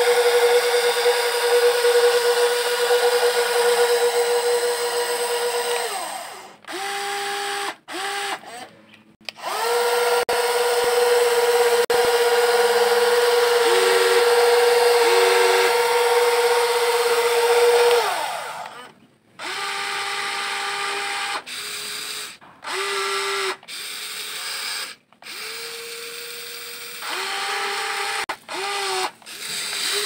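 WLtoys 16800 RC excavator's electric motors whining as the boom and bucket move: two long steady runs of several seconds, then a string of short stop-start bursts at a slightly lower pitch, each cutting in and out abruptly.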